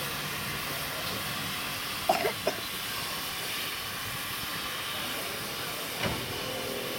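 GWR 1366 Class 0-6-0 pannier tank No. 1369 working slowly with its train, giving off a steady hiss of steam. A few short sharp knocks come about two seconds in, and another near the end.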